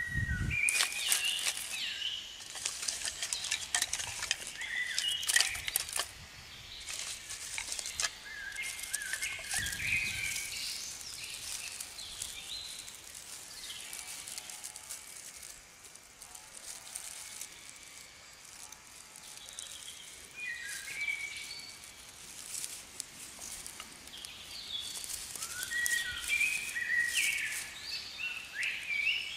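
Dry sticks and twigs clattering and crackling as a small kindling fire is stacked and lit, with birds chirping now and then.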